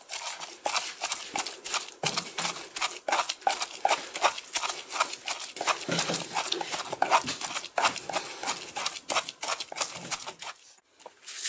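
Wooden pestle pounding ginger, garlic and chili into a paste in a small wooden mortar: quick, uneven knocks, several a second, that stop shortly before the end.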